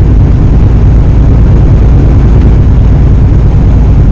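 Steady low drone of a 2015 Kenworth T680 semi truck heard from inside its cab while it drives at highway speed: engine and road noise running loud and even.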